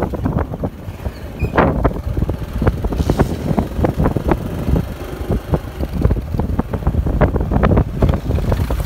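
Wind buffeting the microphone on a moving motorcycle: a loud, gusty, crackling rumble with no clear engine note beneath it.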